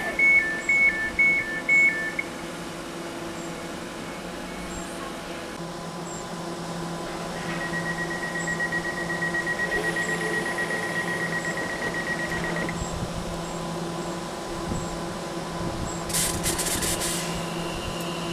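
Class 710 Aventra electric train standing at a platform with its equipment humming steadily. Two-tone door warning beeps sound for the first two seconds, and a second rapidly pulsed beep runs for about five seconds in the middle. Near the end comes a short burst of hiss, then a high whine as the train starts to move off.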